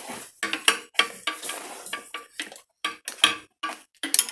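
Steel crankshaft locking rod clinking and scraping against the metal of a Peugeot TU5JP4 engine as it is wiggled into the flywheel locking hole, an irregular series of short clinks, about three a second.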